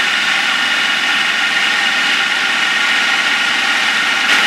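Food processor motor running steadily, blending roasted cauliflower, turnips and onions into a thick, chunky mash: a steady whine over a whirring rush.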